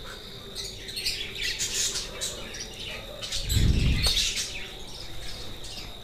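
Budgerigars chirping and twittering in short, scattered calls, with a low bump about three and a half seconds in.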